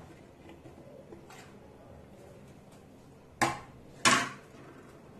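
Diced raw mango pieces being pushed by hand from a plastic plate into a stainless steel bowl, with two sharp clatters of the steel bowl, briefly ringing, about three and a half and four seconds in.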